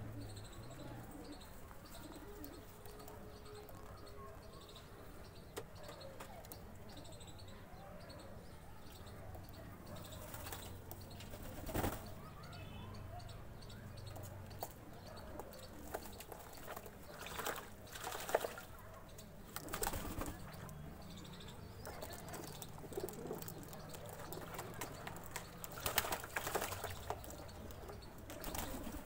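Domestic pigeons bathing in a tub of water: wing flaps and splashes come in sudden bursts several times, over low pigeon cooing.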